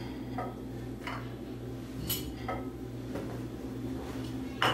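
Crockery being handled on a tiled counter: a few light clinks and knocks as a plate is shifted and a bowl lifted away, with a sharper knock near the end, over a steady low hum.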